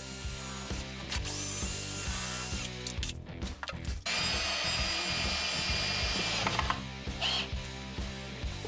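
Power drill running in two bursts of about two and a half seconds each, drilling or driving screws into a plywood carcass.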